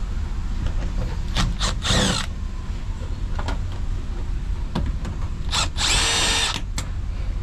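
Cordless power driver with a quarter-inch nut-driver bit backing out sheet-metal screws from a fan coil unit's cover: a couple of short spins about one and a half to two seconds in, then a longer run of about a second near the end, its motor whining.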